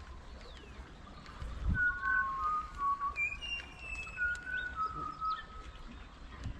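A bird singing: a run of clear whistled notes at a few steady pitches, in two phrases about two seconds long, with a low rumble underneath.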